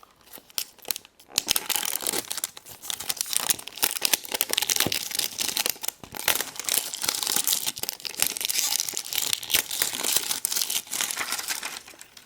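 Wrapping being torn and crumpled off a giant surprise egg by hand: dense, continuous crackling that starts about a second in and stops just before the end.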